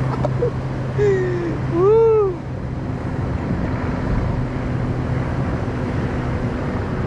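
Steady wind and surf noise at the shore, with a low steady hum underneath. About two seconds in, a man gives a short voiced exclamation that rises and falls in pitch.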